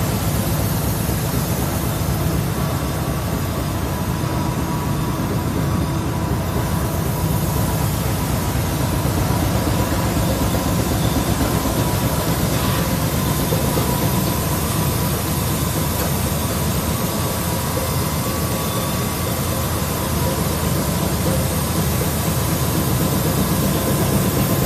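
Coffee bean briquette machine, a two-head extruder fed by a screw conveyor, running under load and pressing out 30 mm briquette rods. A steady, heavy mechanical drone with a faint steady whine above it.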